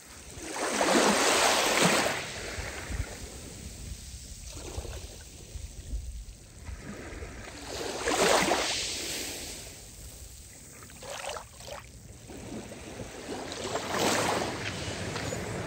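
Small waves washing up onto a sand and fine-gravel beach. Three larger surges come about six seconds apart, with quieter lapping between them.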